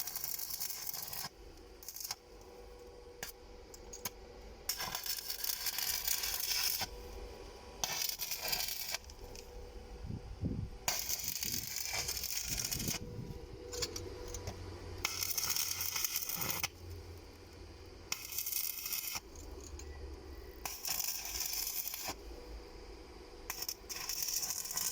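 Metal parts and tools clinking, rattling and scraping in repeated bouts of a second or two, as work is done on walk-behind tractor tiller cutters.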